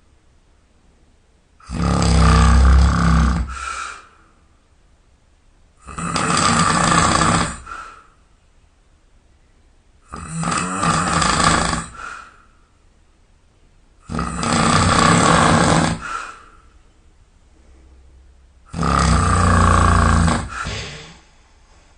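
A man snoring loudly in deep sleep: five long snores, each about two seconds, coming regularly about every four seconds.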